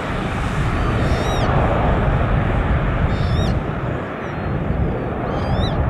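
Boeing 767-300 jet engines at climb power just after takeoff, a steady low rumble. A bird chirps briefly about three times over it.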